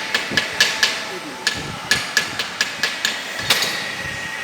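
A hammer striking metal in quick, even blows, about four a second, each blow with a short metallic ring. There is a brief pause about a second in, and a single heavier blow near the end.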